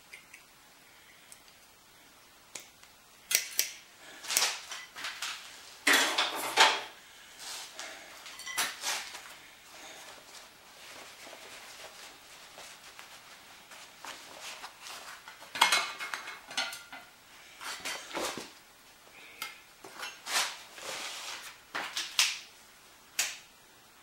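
Metal clinking and clanking at irregular intervals, in short clusters: steel hand tools and locking pliers being handled against a sheet-steel windmill wheel.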